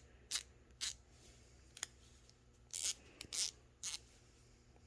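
An old Snap-on ratchet worked back and forth in short strokes: about six brief raspy bursts of quick clicking, spread over the few seconds, showing the ratchet still works.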